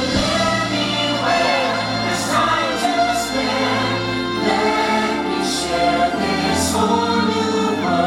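Orchestral show music with a choir singing long, held notes.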